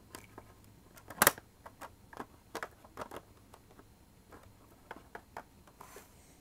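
Small plastic Littlest Pet Shop figurines and toy shopping bags clicking and tapping together as they are moved by hand. A sharp click a little over a second in is the loudest, followed by a quick run of lighter taps and a few more near the end.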